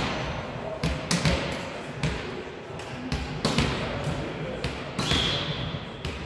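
Volleyball play in a sports hall: a string of sharp hits and thuds of the ball against hands, arms and floor, each one echoing through the hall. A short high tone sounds about five seconds in, with faint voices underneath.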